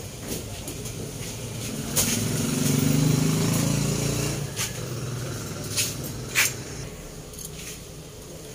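A low engine rumble swells and fades over about three seconds, like a vehicle passing, over a steady background hiss, with a few sharp clicks.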